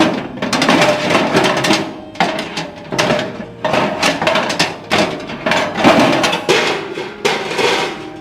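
Irregular knocking and scraping of hand-tool work on metal, a dozen or so strokes of uneven length.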